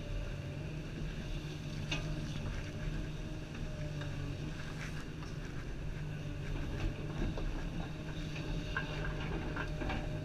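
Komatsu 350 excavator's diesel engine and hydraulics running steadily as the machine digs, heard from inside the cab. A few short knocks and rattles come about two seconds in and again near the end.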